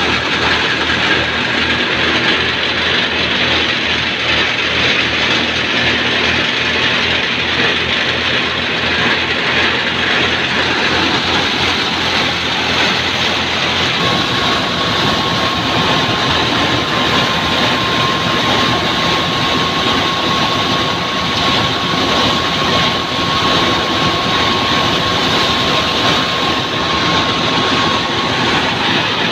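Tractor-driven wheat thresher running, a steady loud mechanical din of the threshing drum and blower with the tractor's engine beneath it. About halfway through the mix shifts and a steady high whine comes in.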